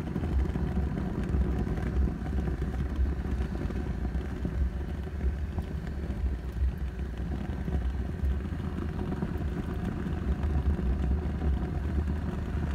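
Gas barbecue grill with its burners lit, a steady low rumble with a hiss above it.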